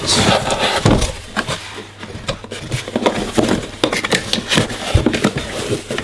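Cardboard packaging inserts being handled and pulled about in a box: a steady run of scrapes, rustles and sharp knocks, with heavier thuds about a second in and again near the end.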